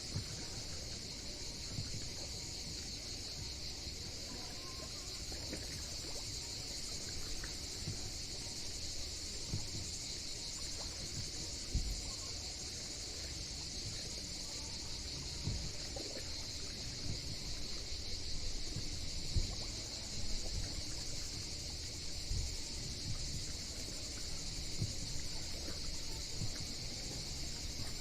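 A steady chorus of insects making a continuous high-pitched drone, with a few short, low thumps scattered through it.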